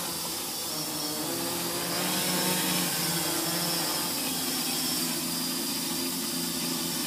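FPV quadcopter's brushless motors and propellers buzzing steadily in flight, the pitch shifting a little as the throttle changes, over a hiss.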